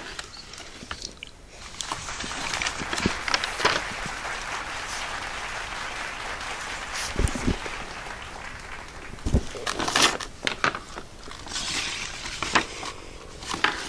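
Paper and thin card rustling and crinkling as cut-out puppets and a paper curtain are handled in a cardboard toy theatre, with a few light taps. The rustle runs on steadily from about two seconds in, and sharper crinkles come near ten and twelve seconds.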